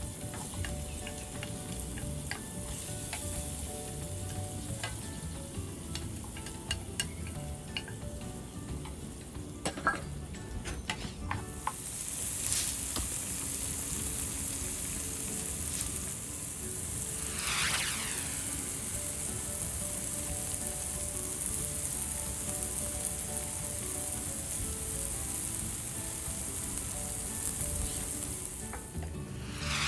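Chopped garlic and onion sizzling in hot oil in a frying pan, stirred with a wooden spatula that clicks and scrapes against the pan. The sizzle grows louder about a third of the way in and stays strong.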